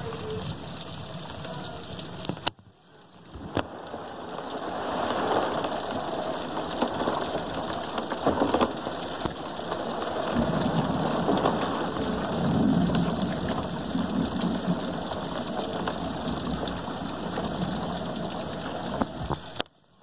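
Steady rain during a thunderstorm, with a low rumble of thunder swelling about ten seconds in and lasting several seconds.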